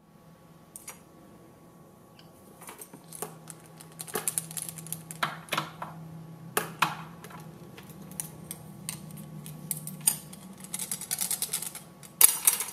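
Irregular clicks and taps of a black-headed caique's beak on a plastic spoon and the desk it stands on, over a steady low hum, with a louder clatter near the end.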